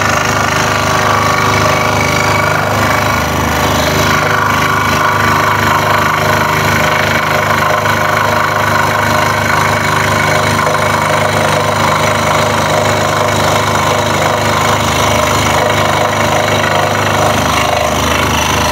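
Scroll saw running and cutting a wooden puzzle piece, with a steady machine noise. The workpiece is hitting onto the saw's table as the blade runs.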